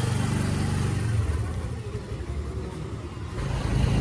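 Motor scooter's small petrol engine running steadily as it rides off, under a steady rushing noise.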